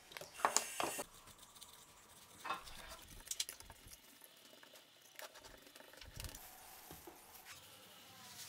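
Hand-tool scraping and scratching on a small electric motor: a screwdriver prying the plastic cooling fan off the shaft, loudest in the first second, then a wire brush scrubbing dirt off the cast motor casing in short strokes.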